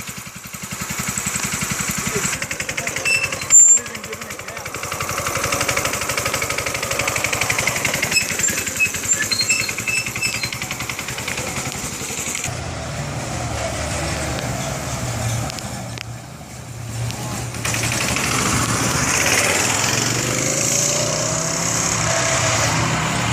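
Mini Baja minibike's 212cc single-cylinder engine running, its pitch rising at times as it is throttled up. A single sharp knock about three and a half seconds in.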